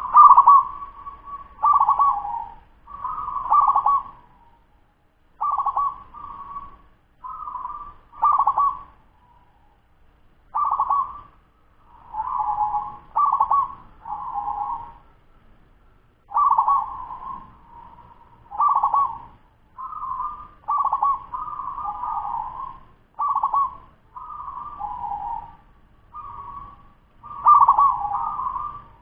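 Ten-month-old local zebra dove (perkutut) cooing in quick repeated phrases of pulsing notes around one pitch, one phrase every second or two, with a couple of longer pauses.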